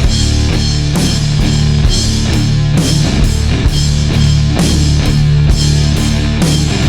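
Loud rock music with guitar and a drum kit playing a steady beat.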